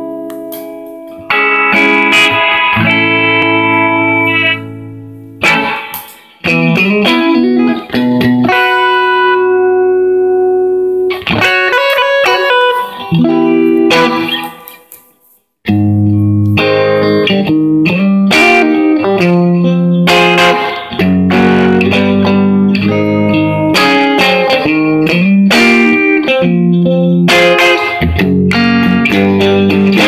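Fender Stratocaster electric guitar played through a Marshall 5210 50-watt solid-state combo amp: chords and runs of notes left ringing, with a brief break about halfway through before fuller, lower chords come in.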